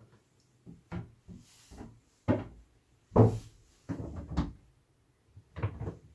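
Several irregular knocks and clunks of a small hinged door and its fittings being handled in a yacht's shower compartment. The loudest comes about three seconds in.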